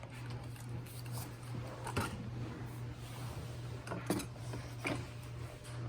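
Three light clicks from a Roomba s9+ robot vacuum being handled and readied to start, over a steady low hum.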